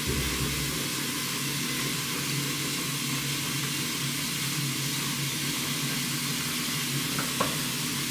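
A steady hiss with a low hum beneath it: a pot of water heating on the stove. One light click about seven seconds in.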